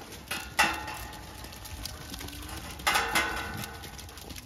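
Galvanised metal pen gate clanking and rattling twice, about half a second in and again near three seconds, each clank ringing on briefly.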